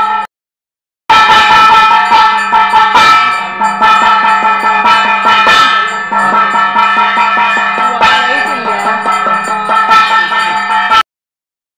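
Temple bells and percussion ringing continuously for puja, a dense run of metallic strokes over steady ringing tones. The sound cuts out briefly just after the start and again near the end.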